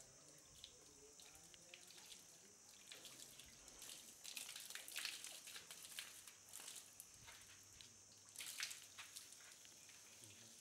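Faint water from a hose spraying and splattering onto baby elephants' wet hides, with scattered drips and splashes that grow louder for moments.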